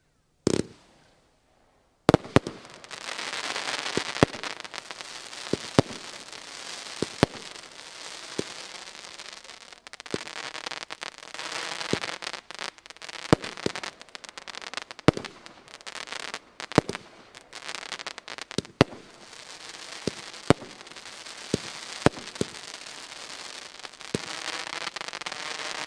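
A multi-shot firework firing, Asgaard C by Original Fireworks. There is one short burst about half a second in. From about two seconds on, a dense crackling hiss runs on, with a sharp bang every second or so as shots burst into glittering stars.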